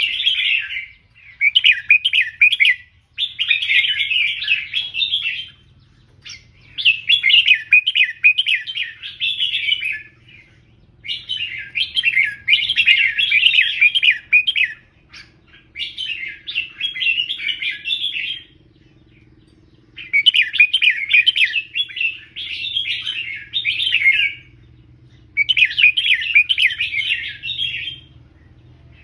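Red-whiskered bulbul singing: a run of bright, rapid chirping phrases, each lasting one to a few seconds, separated by short pauses.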